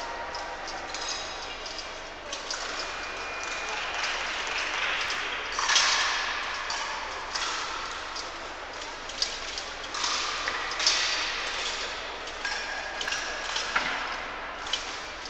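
Women's épée bout: blades clinking and feet working on the piste, with short ringing tones and several sharp knocks over the steady background of a large hall.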